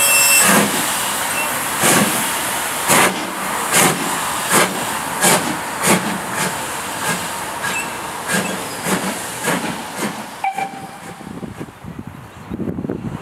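BR Standard Class 5 No. 73129, a Caprotti-valve-gear 4-6-0 steam locomotive, working under steam with steady hiss from its cylinders. Its exhaust beats start about a second apart and come closer and closer together as it gathers speed. A whistle note ends just at the start.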